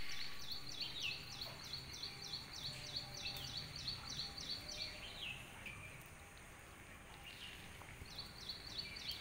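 Bird calling: a quick string of high repeated notes, about four a second, that stops about five seconds in and starts again near the end, with a few short falling chirps.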